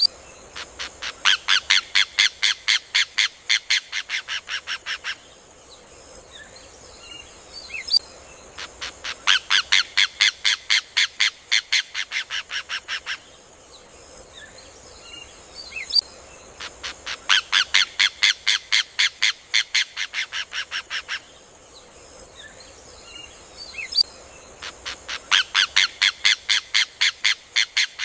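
Rufous hornero (João de Barro) song: loud bursts of rapid, sharp, ringing notes, each about four seconds long, quickening and then fading away. The burst comes four times, about every eight seconds, with a steady high hiss and a few faint chirps between.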